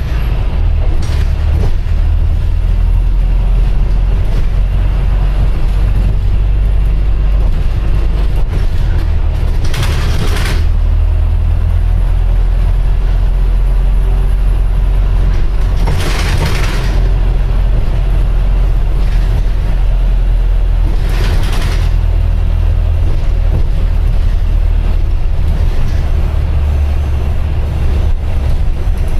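Interior noise of a Volvo B5LH hybrid double-decker bus on the move, heard from the upper deck: a steady low rumble from the drivetrain and road. Three short hisses stand out, the first about ten seconds in and the others some six and eleven seconds later.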